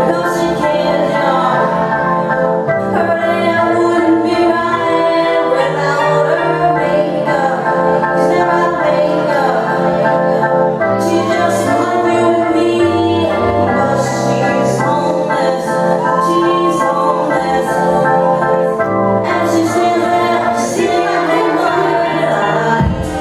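Music with a sung melody over long held chords, without a steady beat.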